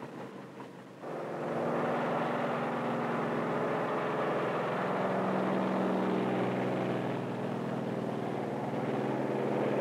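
Propeller aircraft piston engines running, a steady drone with several pitched lines that comes in abruptly about a second in.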